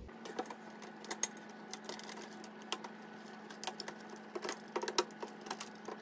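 Plastic wire-harness connectors being unclipped and pulled off a microwave's control circuit board by hand: scattered, irregular small clicks and rattles of plastic and wire.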